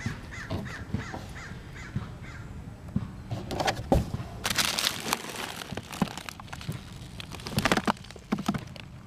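Harsh cawing bird calls, repeated a few times, with bursts of rustling or crinkling noise in the middle.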